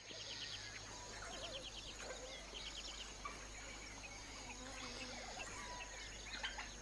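Dawn bush ambience: many small birds chirping and trilling over a steady, high insect drone, with a faint low hum beneath.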